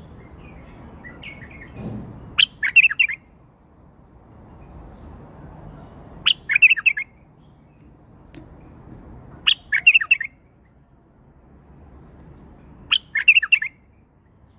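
Male white-eared bulbul singing: four short, bright, warbled phrases, each opening with a sharp note and lasting under a second, repeated about every three and a half seconds.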